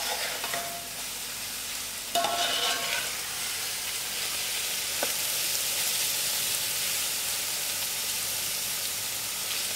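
Shredded cabbage frying in oil in a metal pot with a steady sizzle, over raised heat as it browns, while a metal spoon stirs and scrapes through it. A short louder clatter of the spoon against the pot comes about two seconds in.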